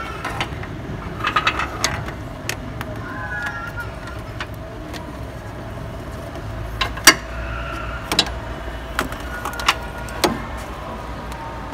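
Hands rummaging around the alternator in a car's engine bay: scattered clicks and knocks of parts being touched and moved, the sharpest about seven seconds in.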